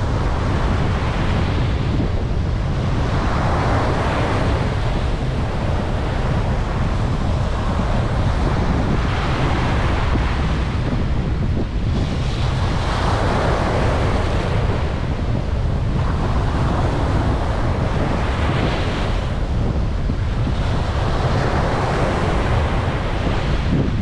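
Surf breaking and washing up a sandy beach, each wave a swell of hiss every few seconds, over a steady low rumble of wind on the microphone.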